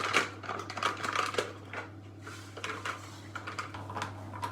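Quick clicks, taps and scrapes of kitchen utensils as granulated sugar is measured out by eye into a bowl, over a steady low hum.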